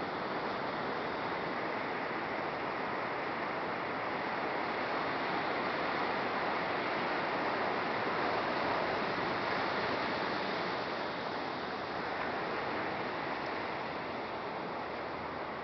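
Ocean surf breaking and washing up a sandy beach: a steady rush that swells a little toward the middle and eases near the end.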